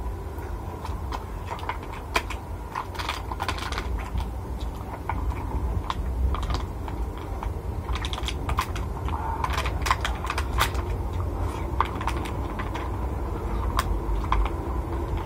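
Close-up eating sounds by hand: irregular small clicks and crackles of chewing and of fingers picking rice and grilled chicken out of a plastic food box, over a steady low hum.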